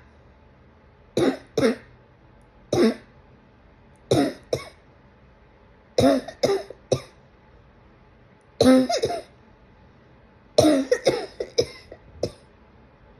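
A person coughing in short bouts of one to three coughs, a second or two apart, some of them voiced, ending in a longer run of quick coughs.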